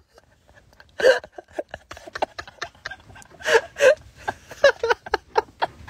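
Young men laughing in short, breathy bursts of giggling and chuckling, with a sharp burst about a second in.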